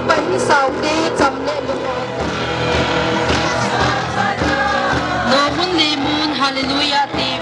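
Music with singing voices, with sharp percussive strikes in the first second or so.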